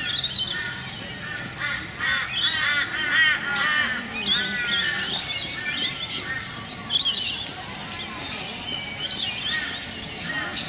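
Several birds calling over one another in the garden trees, with quick runs of repeated arched notes densest in the first half and scattered calls later.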